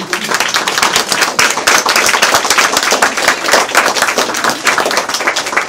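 A small crowd applauding, loud and close, with dense overlapping hand claps that start abruptly.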